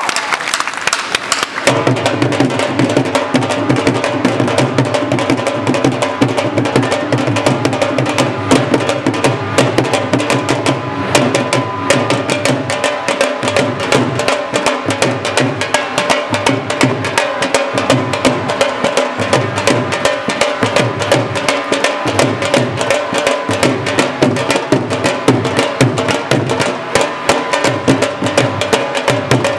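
Several dhol drums beaten with sticks in a fast, driving rhythm. A backing music track with a steady bass line joins them about two seconds in.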